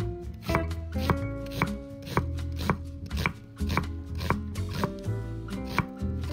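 Chef's knife chopping a peeled onion on a wooden end-grain cutting board: crisp knocks about twice a second as the blade cuts through and strikes the board, over background music.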